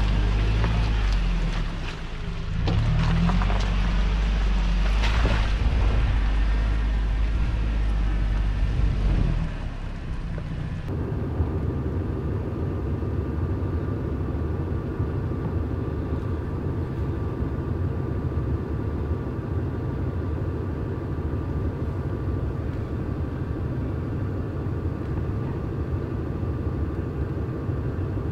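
4x4 engine working at low speed while rock crawling in four-low, its low rumble rising and falling with the throttle. About ten seconds in, the sound changes to a steadier engine drone with a higher hum over it.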